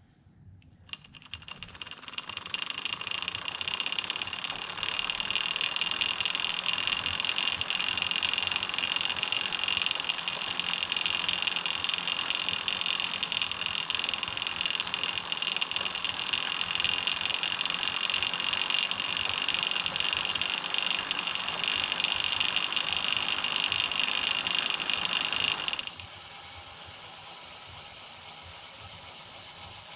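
Bicycle chain running over the idler cog of a home-built recumbent's drivetrain with a high-density polyethylene chain keeper fitted: a steady mechanical whirring with a strong high-pitched edge. It builds up over the first couple of seconds and cuts off suddenly about 26 seconds in, leaving a fainter steady noise. The owner suspects the chain keeper is acting as an amplifier for the idler noise.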